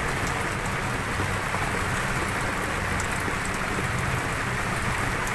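Steady rain falling on the boat and the sea around it: an even hiss with scattered small drop ticks, over a low steady hum.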